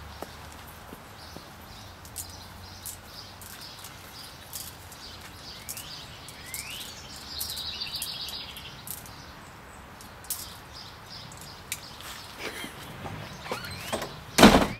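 Songbirds chirping over steady outdoor ambience, with scattered light clicks and one loud knock near the end.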